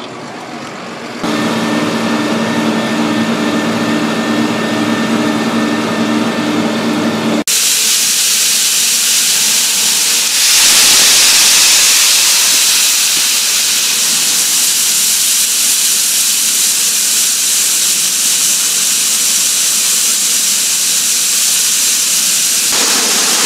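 John Deere 4440 tractor running steadily with an even hum for the first several seconds. Then a sudden change to a loud, steady rushing hiss of soybeans pouring into a grain bin.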